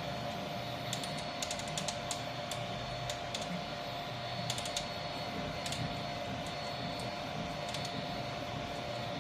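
Vivedino Troodon 3D printer printing: a steady motor whine with irregular sharp cracking and popping clicks, some in quick clusters, from the right side of the gantry. The owner suspects bad bearings in the right front pulleys.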